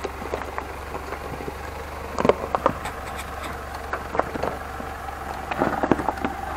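Mitsubishi Pajero crawling slowly down loose rock with its engine ticking over at low speed. Stones crack and crunch under the tyres, in clusters about two seconds in and again near the end.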